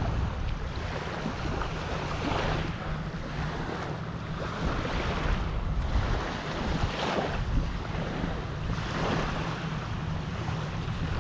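Small waves lapping and washing up on the sand at the shoreline, swelling every two to three seconds, under steady wind buffeting the microphone.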